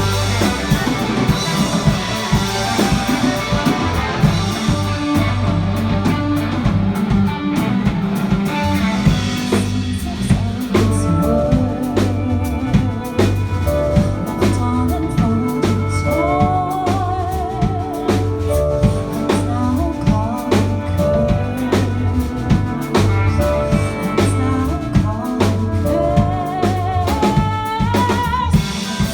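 A live band playing: a drum kit keeps a steady beat over bass notes, and a wavering lead melody comes in after about ten seconds.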